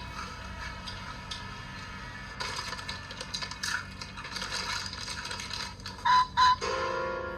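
Night insect chorus, a steady high trilling with scattered clicks and rustle. Near the end come two short loud sounds half a second apart, followed by a steady pitched tone that leads into music.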